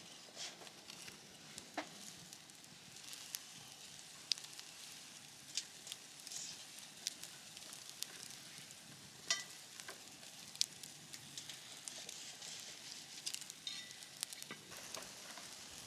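Food sizzling faintly over a wood campfire, with scattered sharp pops and crackles.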